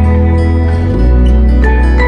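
Slow background music of long held notes over a steady bass line.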